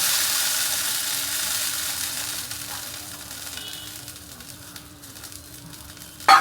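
Tamarind water sizzling in a hot pan of sautéed shallots and brinjal, loud at first and dying down over a few seconds. One sharp knock near the end.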